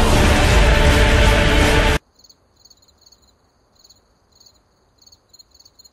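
Loud music cuts off abruptly about two seconds in, leaving only faint cricket chirping: the cartoon 'crickets' gag for an awkward silence.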